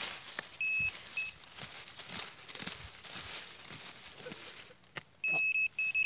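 Handheld metal detector pinpointer beeping at a steady high pitch over a metal target in the soil: one beep just under a second in, then two short beeps near the end, with rustling and scraping between.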